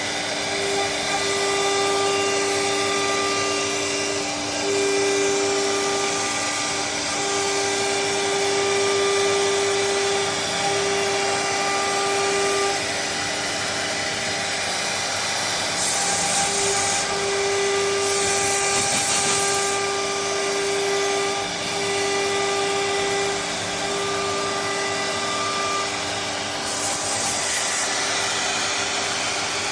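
3-axis CNC router running as it engraves an MDF door panel: a steady machine whine with a second, slightly higher tone that starts and stops every second or two as the cutter moves along its path.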